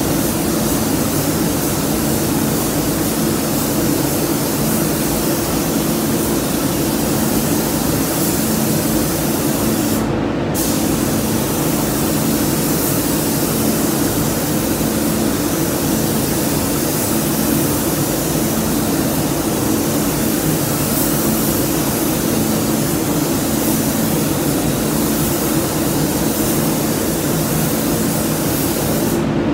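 Gravity-fed compressed-air paint spray gun hissing steadily as red paint is sprayed onto a car body, over a steady low hum. The hiss stops briefly about ten seconds in, then resumes.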